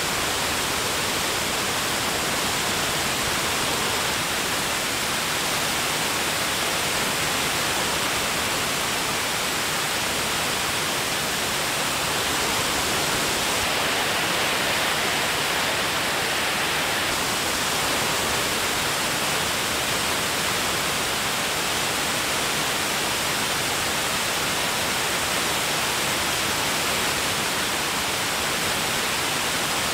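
Steady rushing noise of an aircraft in flight, even and unchanging throughout.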